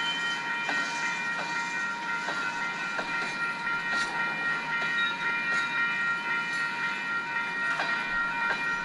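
Freight train hopper cars rolling slowly past, their steel wheels giving a steady, high-pitched squeal of several held tones, with scattered clicks of wheels over the rail joints.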